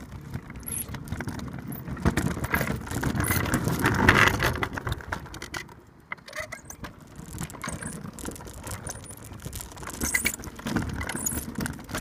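Kick scooter rolling over tarmac: a rumble from the wheels with rapid rattling from the frame. It is loudest from about two to five seconds in and again near the end, with a brief lull in between.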